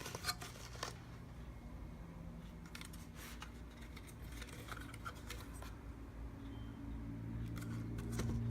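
Scattered light clicks and scrapes from small parts being handled, over a steady low hum.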